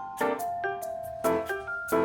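Background music: a light, bouncy tune of struck, pitched notes, several a second.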